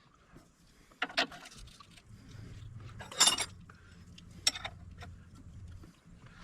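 A few short metallic clinks of hand tools being handled, the loudest about three seconds in, over a faint low hum.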